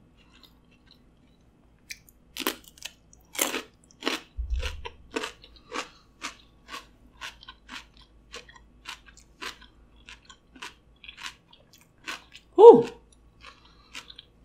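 Crunchy bites into a raw cucumber, followed by close-miked crunchy chewing at about two or three crunches a second. A low thump comes just after the bites, and a short voiced sound near the end is the loudest moment.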